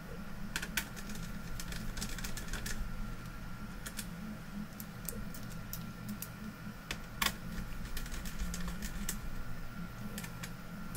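Scattered small clicks and taps of a hand screwdriver and screws on a monitor's sheet-metal mainboard chassis as black screws are put back in, over a steady hum.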